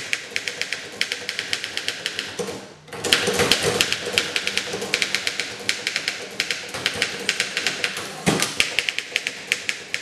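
1911 Underwood No.5 typewriter being typed on quickly: a fast, uneven stream of sharp keystroke clacks as the typebars strike the platen, with a brief pause about three seconds in and a heavier knock a little after eight seconds.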